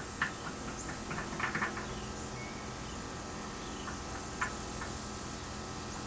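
A few light clicks and taps from handling small parts at a workbench, one just after the start, a cluster around a second and a half in and one more near four and a half seconds, over a steady electrical hum with faint brief high squeaks.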